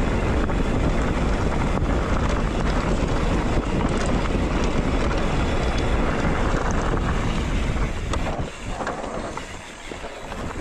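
Wind rushing over the camera microphone and tyres rumbling on loose gravel as a mountain bike descends at speed. The noise drops sharply about eight seconds in.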